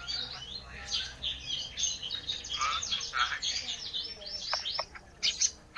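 A songbird known in Indonesian bird-keeping as 'ranting' singing its 'isian' song: a fast, unbroken stream of varied chirps, short whistles and trills, with a brief pause near the end.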